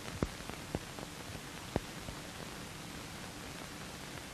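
Steady hiss with a few scattered clicks and pops: the surface noise of an old optical film soundtrack.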